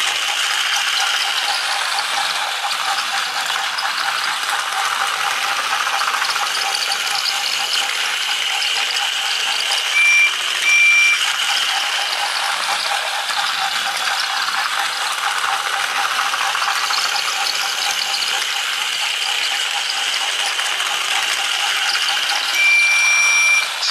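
Trackmaster Percy toy engine's battery motor and gearbox running as it travels along plastic track: a steady mechanical whirring rattle. Short high beeping tones sound twice about ten seconds in and once near the end.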